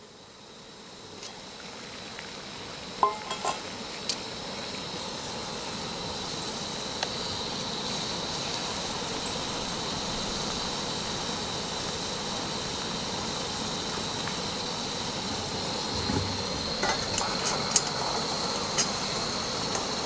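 Gas-canister camp stove burner hissing, building over the first several seconds and then holding steady. Steel pot and cup clink against each other a few times about three seconds in and again near the end.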